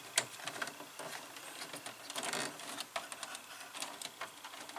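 Faint rustling and small, irregular clicks of wires being handled by hand in an electrical control cabinet.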